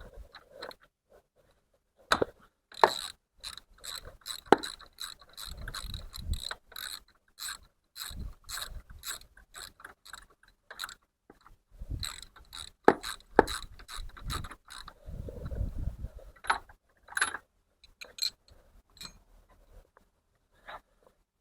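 Ratchet wrench clicking in runs of quick strokes with short pauses, undoing a spark plug; fewer, scattered clicks near the end.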